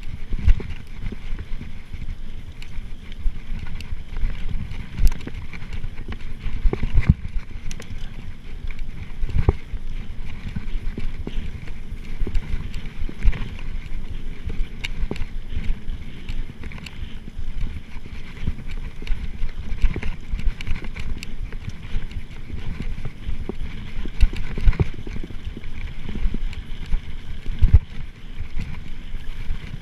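Mountain bike ridden over a bumpy dirt trail: a steady rumble of the tyres with frequent irregular knocks and rattles as the bike hits ruts and roots, picked up on a chest-mounted GoPro.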